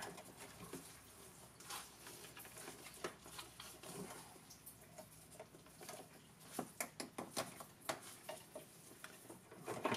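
Faint rustling with scattered small clicks and taps as gloved hands handle and reroute wires at a golf cart's forward/reverse switch.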